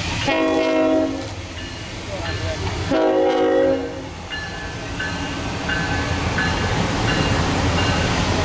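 Two short blasts of Union Pacific Big Boy 4014's chime steam whistle, about two seconds apart, over a steady low rumble.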